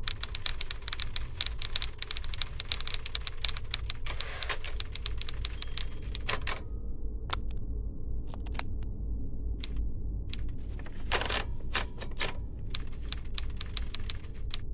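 Typing: rapid clacking keystrokes in a dense run for the first six seconds or so, then in scattered short bursts, over a steady low hum.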